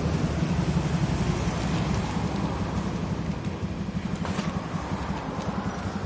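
Steady low rumble of a motor vehicle engine running, slowly fading, with a few faint light clicks.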